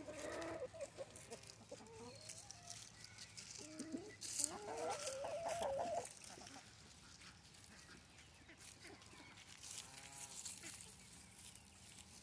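Chickens clucking and calling close by, several overlapping wavering calls for the first half, then fainter, scattered calls. A single short sharp click stands out about four seconds in.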